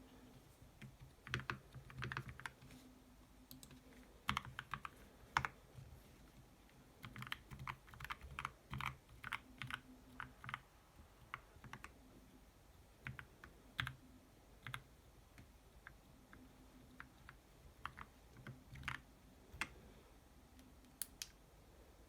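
Typing on a mechanical keyboard with tactile Kailh Speed Copper switches and PBT keycaps: irregular runs of key clicks with short pauses between them.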